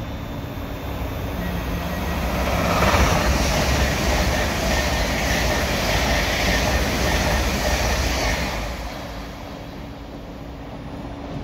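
LNER Azuma high-speed train passing close by at speed: the rush of wheels and air swells about two seconds in, holds for about six seconds, then falls away as the train recedes.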